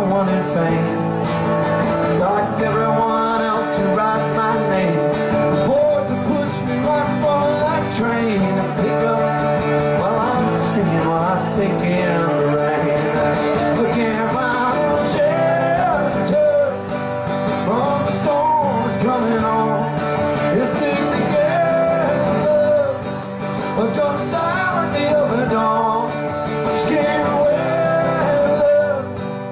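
A man singing a country song live, accompanying himself on an amplified acoustic guitar. His voice is affected by illness, by his own account.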